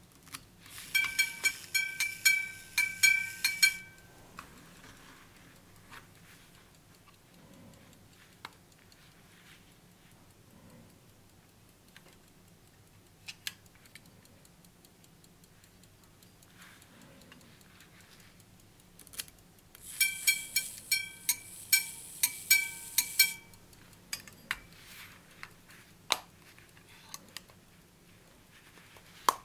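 Gold pocket watch's repeater striking the time in quick runs of high and low chime notes, twice: about a second in and again after about twenty seconds. Small mechanical clicks from the watch fall between the runs.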